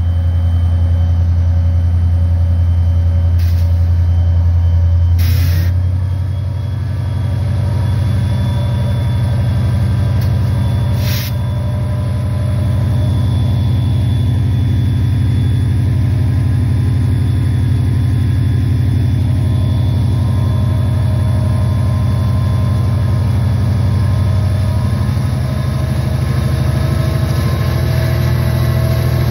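EMD SD40-2 locomotive's 16-cylinder turbocharged 645E3 diesel prime mover running hard under a static load test, with its power going into the dynamic brake grids: a loud, steady deep drone with a thin whine above it.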